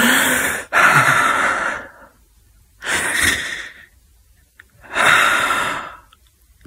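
A man's heavy, laboured breathing through an open mouth, out of breath as if after running: four loud breaths, the first two back to back, then two more spaced about two seconds apart.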